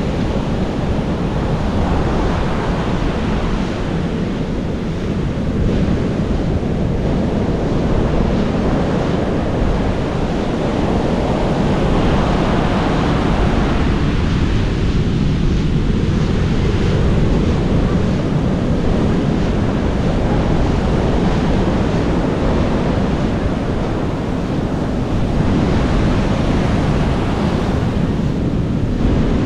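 Ocean surf washing steadily on a rocky shore, with wind rumbling on the microphone.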